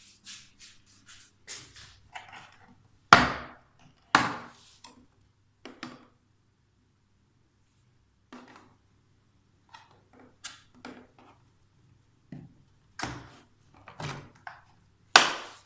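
Scattered knocks and clicks of hard objects, irregular. Three louder thuds come about three seconds in, a second after that, and near the end.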